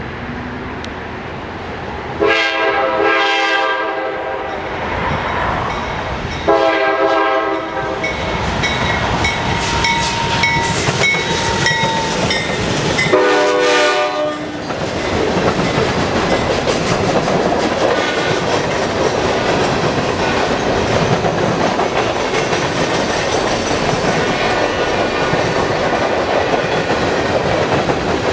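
Locomotive air horn sounding three blasts, the first two longer and the third shorter, as a train approaches; then the train rolls past with steady wheel noise and clickety-clack over the rail joints.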